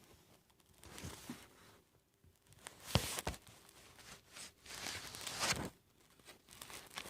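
Paper rustling as book pages are handled and turned, in irregular soft bursts, with two sharp knocks about three seconds in.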